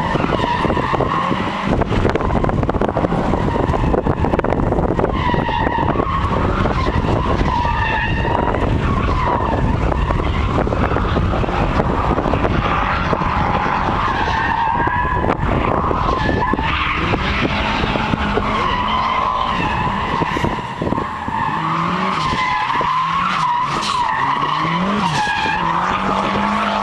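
Turbocharged Mazda Miata drifting: its tyres squeal almost without a break while the engine revs rise and fall again and again, the revving most distinct in the last several seconds.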